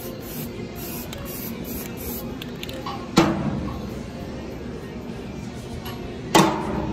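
A few short hisses of spray paint through a hole template onto steel angle-iron pieces, then two sharp metallic clanks with a short ring, about three seconds apart, as steel pieces are set down on the steel plate.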